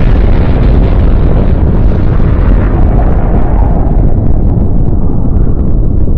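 Roar of a huge blast, as in a nuclear test: a loud, steady rumble. Its hiss dies down over the first few seconds, leaving the deep rumble.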